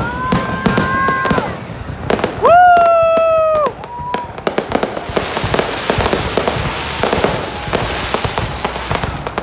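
Aerial fireworks going off in rapid bangs and pops that thicken into a dense crackle about five seconds in. Near the start, two long held horn-like tones sound over them, the second one the loudest sound here.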